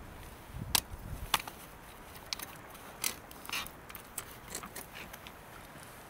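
Scattered sharp clicks and knocks of close handling and movement, the two loudest a little over half a second apart in the first second and a half over a low rumble, then smaller ticks.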